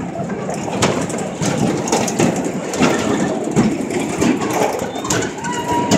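Tilt-A-Whirl ride running: the spinning car rattling and clunking over the platform, irregular sharp knocks over a continuous noisy rush.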